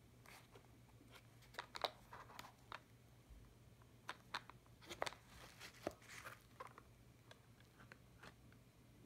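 Faint handling noise of a nylon military holster being turned over in the hands: scattered rustles and small clicks from the fabric and its plastic hardware, coming in short irregular clusters.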